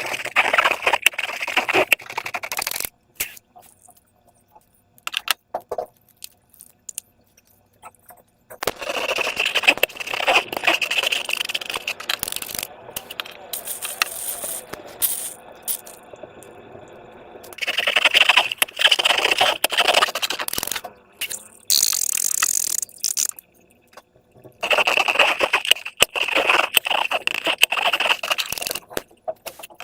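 Slime being squeezed and worked by hand, making wet crackling and clicking in four bouts of a few seconds each, with quieter pauses between.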